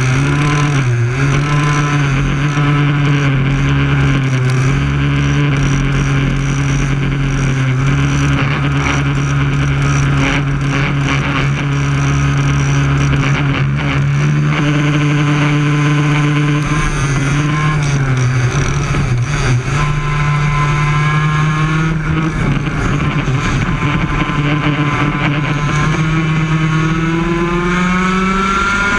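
Two-stroke Yamaha KT100 kart engines running in a pack, heard from on board one kart. The engine note holds steady for about the first half, then the revs rise and fall and climb steeply near the end as the kart accelerates.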